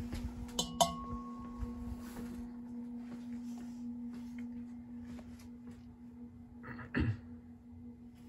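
CEC-built motor of an A&G Machinery Toronado ceiling fan running, giving a steady electrical hum. A few light clicks come about a second in, and a short knock near the end.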